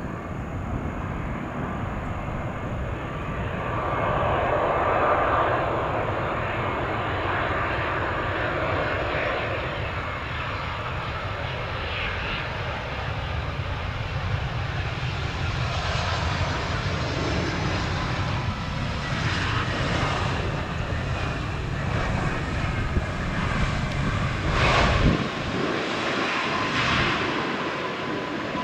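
Jet airliner engines running, a steady rushing noise with a thin whining tone through it.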